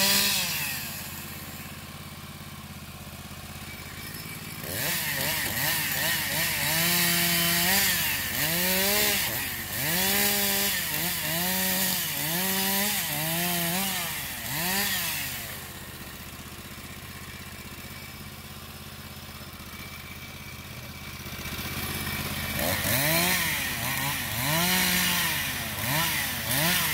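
Engine of a Kapsen 18 RC remote-controlled tracked forestry tractor running, revving up and dropping back again and again, each rise lasting about a second, as it works the logs. Two spells of revving, the second starting about two-thirds of the way in, with steadier idling before and between them.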